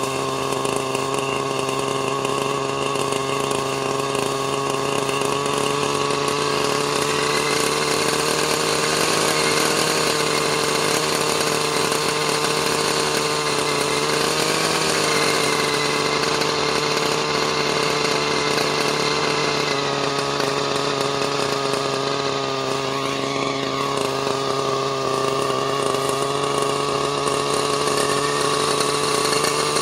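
Thunder Tiger Redline RL-53H glow-fuel two-stroke engine of an RC helicopter running steadily without rotor blades during break-in, its pitch wavering slightly a few times.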